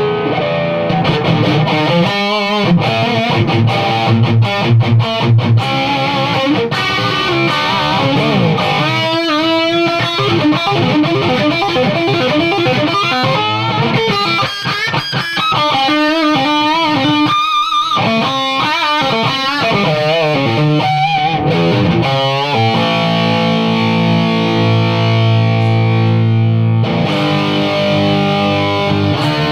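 High-gain distorted electric guitar through a rebuilt Crate Vintage 60 amp, its head played at very low volume and mic'd on a 2x12 cabinet with Celestion Vintage 30 speakers. Riffs and lead lines with wide vibrato in the middle, then held chords ringing out near the end.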